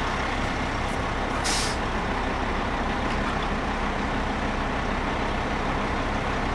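Diesel engine of a military container handler running steadily, with a short hiss about one and a half seconds in.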